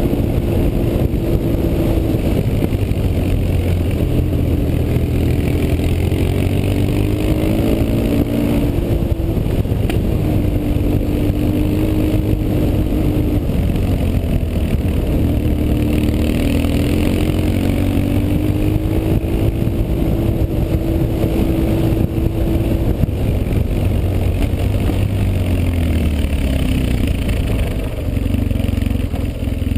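BMW R 1150 GS flat-twin boxer engine running under way, picked up by an on-board camera, its pitch rising and falling as the throttle opens and closes; the engine note drops away near the end.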